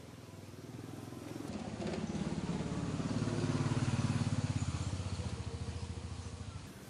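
A vehicle engine passing by, growing louder to a peak about four seconds in and then fading away.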